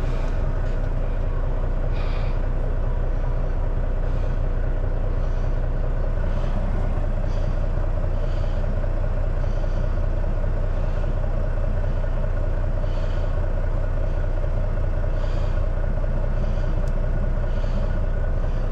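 Semi-truck diesel engine idling steadily, heard from inside the cab.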